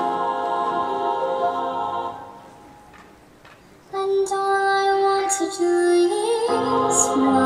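Marching band field show music: held chords fade out about two seconds in, a short hush follows, then a soft solo melody enters about four seconds in, and the fuller ensemble comes back in near the end.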